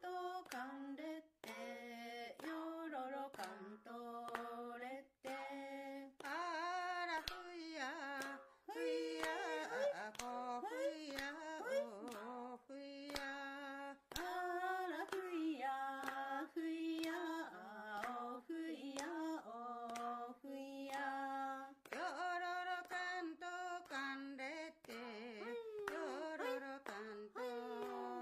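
Women's voices singing an unaccompanied Ainu song, with held, wavering notes and several voices overlapping in places. Frequent sharp clicks run under it.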